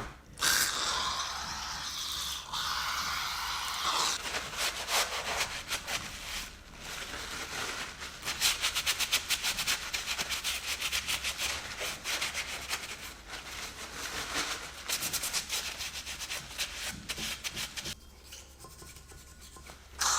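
Hand scrubbing on the outer surface of a Jaguar 4.2 V8 cylinder head, with rapid back-and-forth rubbing strokes. The strokes are fastest and most even in the middle and die down near the end.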